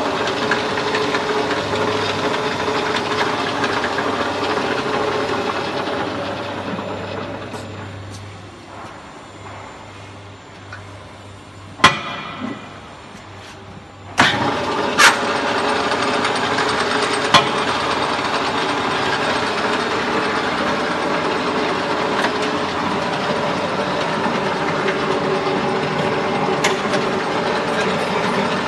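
Ramo mini lathe running steadily, then winding down about six seconds in. A sharp clunk comes while it is stopped, and it starts up again abruptly around fourteen seconds, running steadily with a few light clicks.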